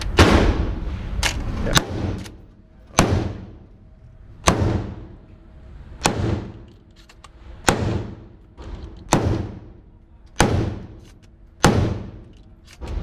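Gunshots from a firearm: about ten single shots, most about a second and a half apart, each with a ringing tail of reverberation.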